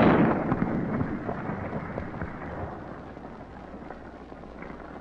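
A sudden loud blast as a .243 hunting rifle's bullet hits a 50-pound block of ice and shatters it, followed by a crackling patter of ice fragments that dies away over about three seconds.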